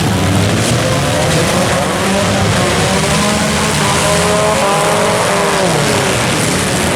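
Several compact derby cars' engines revving at once, their pitches rising and falling over one another above a continuous loud mechanical din.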